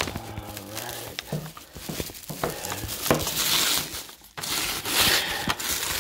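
Plastic packaging being crinkled and pulled off, in irregular rustles with small clicks, briefly dropping away about four seconds in and then coming back louder.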